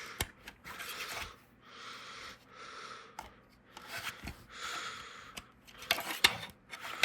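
Handling noise from a fire alarm strobe and its packaging being turned over in the hands: soft rustling broken by several sharp clicks and knocks.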